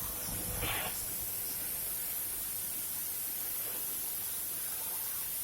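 Water spraying onto an air conditioner's outdoor blower unit: a steady hiss.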